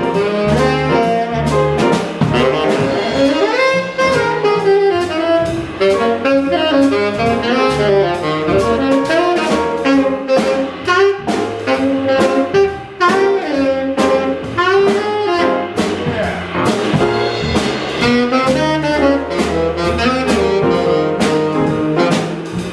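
Live jazz: a saxophone plays a fast improvised solo of quick rising and falling runs, backed by piano, upright bass and a drum kit keeping time on the cymbals.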